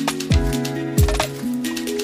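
Background music: a melody of held notes over a beat with a deep kick drum that drops in pitch on each hit.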